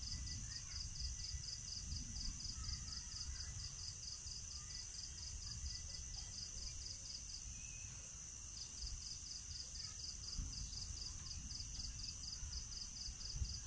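Night insects chirping in a steady, high-pitched pulsing rhythm, about three to four pulses a second, with one of the chirping voices pausing briefly around seven seconds in. A low rumbling noise runs underneath.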